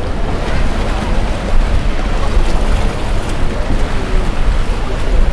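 Sea surf and wind buffeting the microphone, a steady loud rumbling roar, with faint voices in the background.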